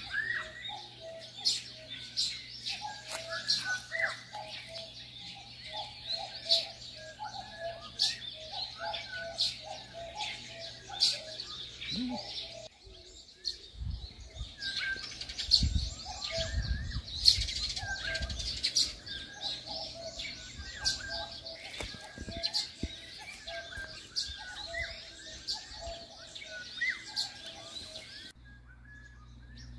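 Small birds chirping and calling in rapid, overlapping bursts, with a short repeated call note among them. A low rumble comes in for a few seconds in the middle.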